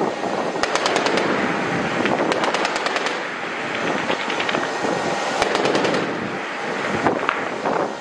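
MK-38 25 mm naval machine gun firing roughly four short bursts of rapid shots, over a steady background rush.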